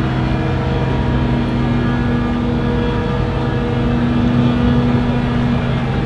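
XCMG XC7-SV12 skid steer loader's diesel engine running steadily as the machine manoeuvres. Its pitch rises a little in the middle and drops back near the end.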